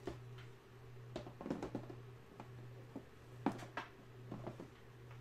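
Light plastic clicks, knocks and scrapes as a filter is handled and slid into the housing of a Rabbit Air Minus A2 air purifier, a few at a time, over a low steady hum.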